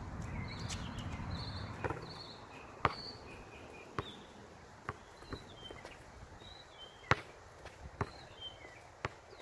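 Basketball bouncing on a hard outdoor court: single sharp knocks about a second apart, with faint bird chirps between them. A low rumbling noise fades out over the first two seconds.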